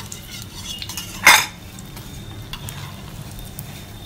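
A steel spatula clanks once, sharply, against a stainless-steel perforated strainer as a fried cutlet is set down on it, with a few lighter metal taps. A faint steady sizzle of frying oil runs underneath.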